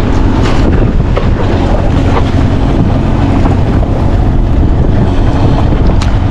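Loud wind buffeting the microphone, with choppy sea washing against the side of a small boat.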